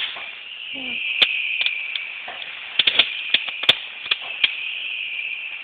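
Fireworks popping and crackling: a dozen or so irregular sharp pops over a steady hiss.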